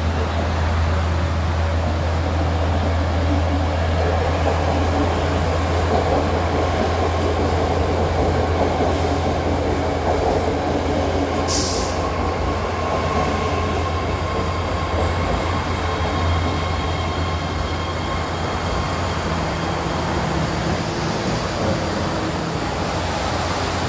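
BART Fleet of the Future train pulling into the station along the platform and slowing to a stop, with a steady rumble and a faint motor whine. A brief hiss comes about halfway through.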